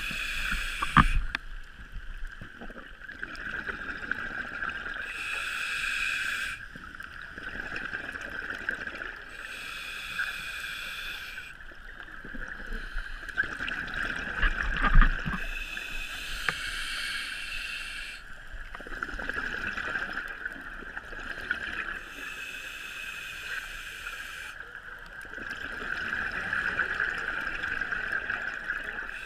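Scuba diver breathing on a regulator underwater: exhaled bubbles come in bursts about every five seconds, over a steady high whine. A knock sounds about a second in and a louder one about halfway through.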